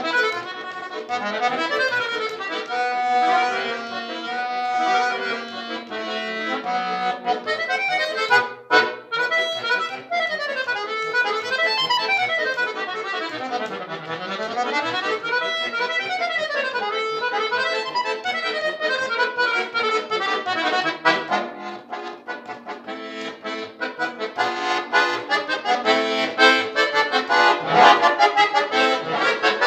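Solo chromatic button accordion playing a fast virtuoso passage of quick runs sweeping up and down. A sharp chord and a brief break come about eight seconds in, and it grows louder with dense repeated chords near the end.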